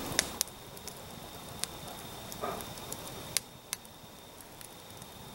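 Campfire of dry sticks crackling: a few sharp pops at uneven intervals over a faint steady hiss.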